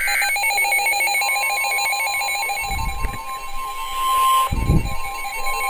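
NOAA Weather Radio EAS SAME header data bursts: a rapid warbling, chirping digital tone pattern, with a steady high alert tone joining about a second in. Two dull low thumps come about halfway through and near the end.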